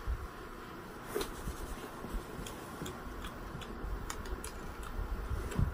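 Light, scattered clicks and ticks of someone eating noodles, a handful spread over several seconds, over a faint steady background.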